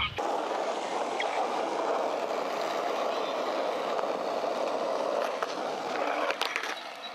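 Skateboard wheels rolling on an asphalt path, a steady rolling hiss that drops off near the end, with a few sharp clicks shortly before.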